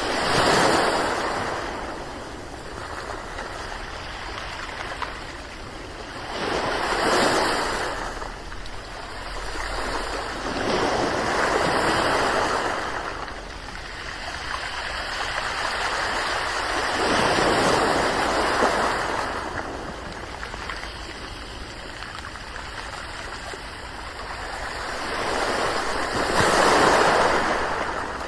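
Ocean waves breaking: a steady wash of water that swells into a louder rushing surge every five to nine seconds, about five times, each one easing back down.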